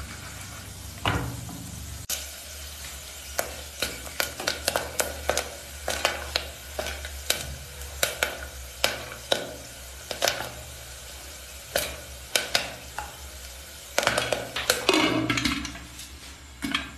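Popcorn kernels sizzling in hot oil in an aluminium pot, then popping in sharp, irregular cracks, a few each second. Near the end the popping gets thicker and louder.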